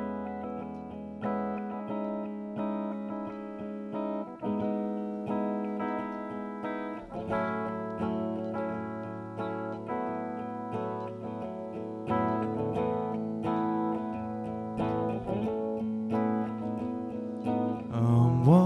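Rock band playing live, led by a clean electric guitar picking and strumming over bass guitar and drums. Near the end a trombone comes in with a rising slide.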